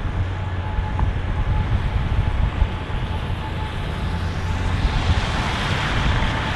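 Boeing 777-300ER's GE90 turbofan engines at takeoff thrust during the roll on a wet runway: a steady low rumble with a thin steady tone. A hiss builds from about four and a half seconds in as the jet draws level.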